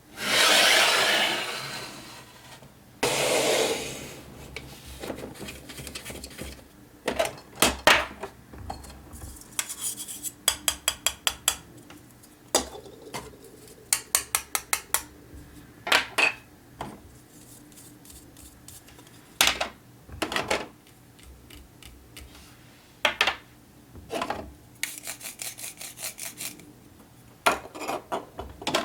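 Small plastic toy kitchen pieces being handled: two rustling swishes near the start, then a long run of light clicks and taps, with quick trains of clicks now and then.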